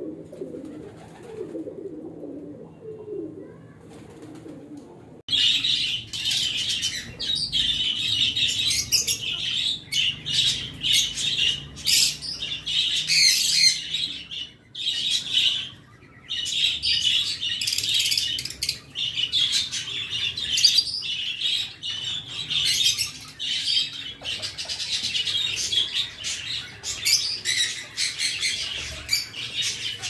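A soft, low warbling for about the first five seconds, then an abrupt switch to loud, dense, high chirping and chattering from many caged birds, with brief lulls.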